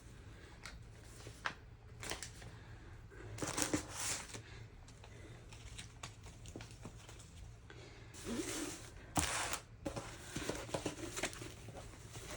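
Paper-and-plastic rustling and crinkling as a rolled diamond-painting canvas is unwrapped and opened out, with scattered small taps and handling clicks. Louder rustles come about a third of the way in and again about two-thirds of the way through.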